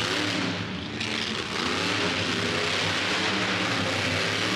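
Monster truck engine running hard under throttle. It eases off briefly about half a second in, the pitch dropping, then revs back up and holds.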